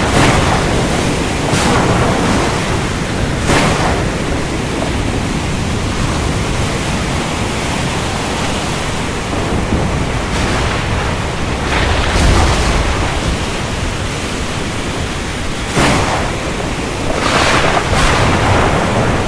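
Heavy rain falling steadily, with thunder: several short cracks scattered through and a deep rumble about twelve seconds in.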